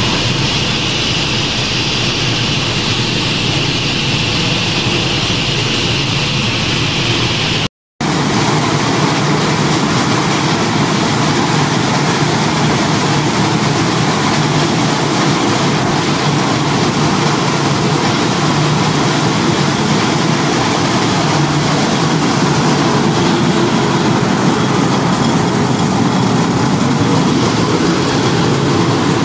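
Corn flakes production line machinery running steadily: a continuous loud mechanical hum with a hiss above it. The sound drops out for a moment about eight seconds in. It then continues with less hiss and more low rumble, the flaking roller mill running.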